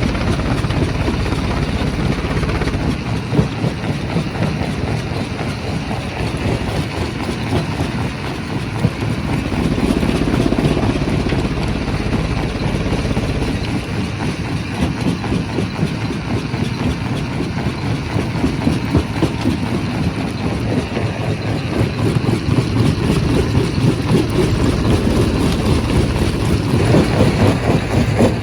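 Heavy quarry rock-crushing machinery running: a deep engine-like drone with a dense, rough grinding texture. It swells about ten seconds in and grows louder near the end.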